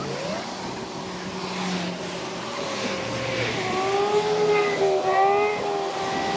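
A motor engine hums, its pitch rising briefly near the start and dipping about halfway through, then holding steady as it grows louder toward the end, over a hiss of wind and water.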